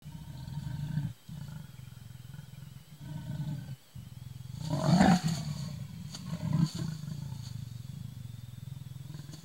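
Leopard growling at its own reflection: long low rumbling growls broken by short pauses, with a louder snarling outburst about five seconds in.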